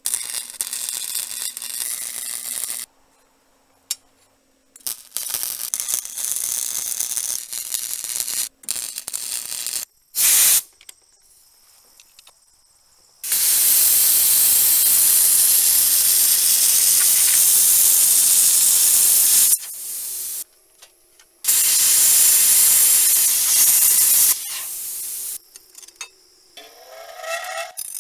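Plasma cutter cutting through steel angle iron and plate: a loud, steady hiss of the cutting arc and air, in stretches of several seconds that start and stop abruptly, with shorter hissing stretches earlier. Near the end a short rising whine.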